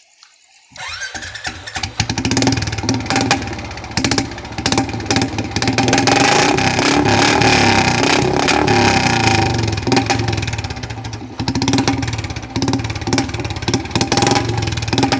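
Royal Enfield Classic 350 single-cylinder engine running through an aftermarket long Punjab big-mouth silencer, coming in about a second in and revved repeatedly, with a rapid thumping exhaust beat. The revs are held high through the middle, drop off, and are blipped again near the end.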